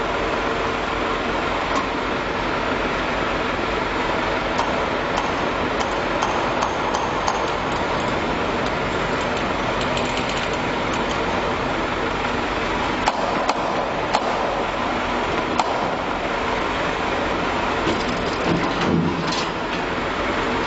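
Steady drone of running industrial machinery, with a few sharp metallic knocks and clinks scattered through it and a short louder clatter near the end.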